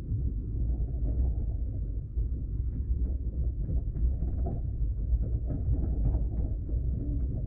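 Indian Railways passenger train running: a steady low rumble with light rattling on top.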